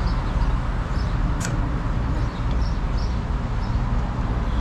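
Steady low background rumble, with faint short high chirps scattered through it and one sharp click about a second and a half in.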